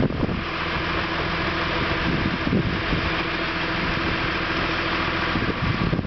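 John Deere 710D backhoe loader's diesel engine running steadily while the front loader's hydraulics raise the bucket.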